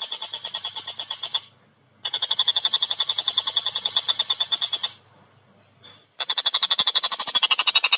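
Tengkek buto kingfisher giving its rapid chattering call: fast, even notes at about a dozen a second, in three long runs broken by two short pauses.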